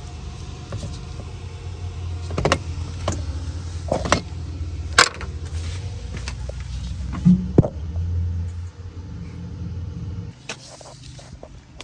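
Bobcat 732 skid steer engine running with a steady low rumble, several sharp clunks and knocks over it, then cutting off about ten seconds in.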